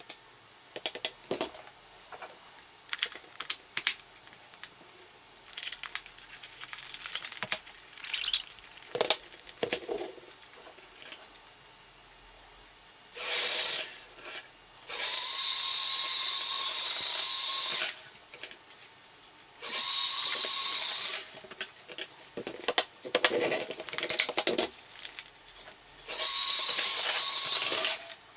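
Small electric motor whirring at high speed in several bursts of one to three seconds, after a stretch of light clicks and taps from handling.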